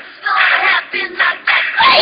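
Loud voices of several people at once.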